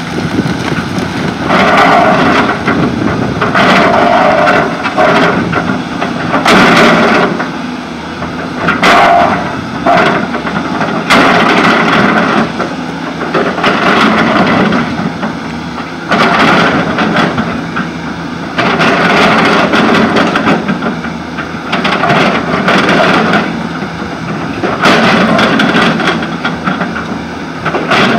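Volvo C-series excavator at work: its diesel engine and hydraulics surge under load every two to three seconds, with knocks and scrapes from the bucket on soil and rock.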